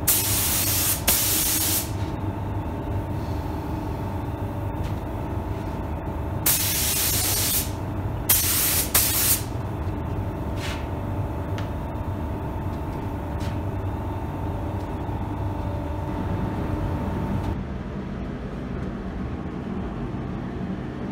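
SATAjet 5000 RP spray gun with a 1.2 mm nozzle hissing in bursts as it sprays clear coat: once at the start, again about six seconds in, then two short bursts a second or two later. A steady hum runs beneath.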